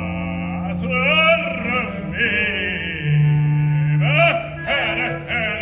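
Live street performance of singing, with voices in vibrato over long held low notes.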